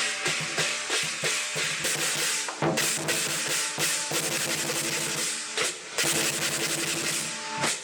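Chinese lion dance percussion: a big drum beaten fast and steadily with clashing cymbals, broken by a couple of short pauses.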